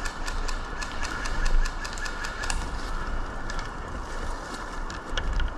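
Airsoft guns firing at a distance: fast runs of sharp clicks, about seven a second for the first few seconds, then scattered single shots, over steady wind rumble on the microphone.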